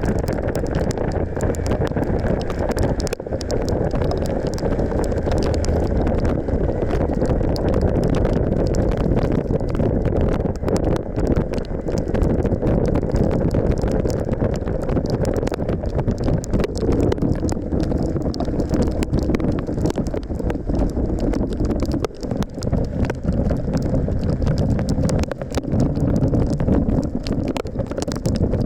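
Steady wind noise on the microphone of a moving Suzuki V-Strom 1050XT motorcycle, with its V-twin engine running underneath at a steady pace.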